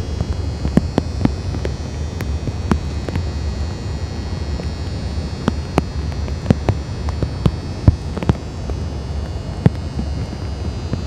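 A steady low hum with many sharp clicks scattered irregularly over it.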